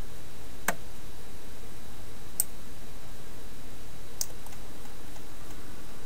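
Three sharp clicks at a computer, from keystrokes and mouse buttons, each about a second and three-quarters apart, over a steady low background hum.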